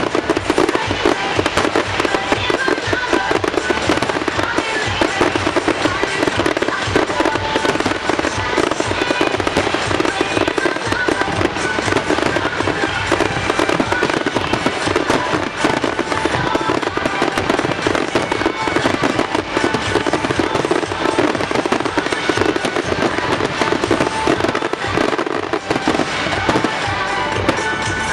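A dense, continuous barrage of fireworks, many cracks and bangs overlapping without a break, with the show's music playing underneath.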